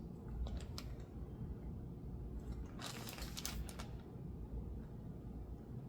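Small clicks and taps from lock pins and tools being handled while a lock is taken apart: a couple of clicks under a second in, then a quick cluster of clicks around the middle, over a steady low hum.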